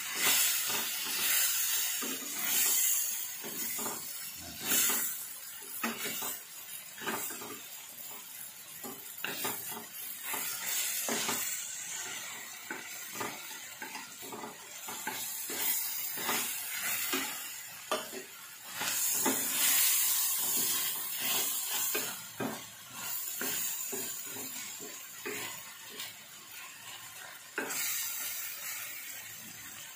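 Pan of fried fish, tomatoes and onions sizzling in oil, with frequent clinks and scrapes of a metal spoon and wooden spatula against the stainless-steel pan as the sauce is spooned over the fish.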